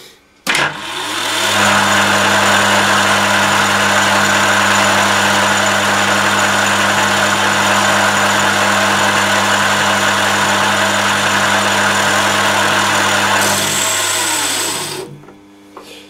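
Emco lathe's one-horsepower electric motor switched on with a click and running up to speed, then running steadily with a loud hum while taking a half-millimetre facing cut. About fourteen seconds in it slows with a falling pitch and stalls, and the stopped motor is left humming. Stalling on so light a cut is the sign of a motor fault, which the owner says there definitely is.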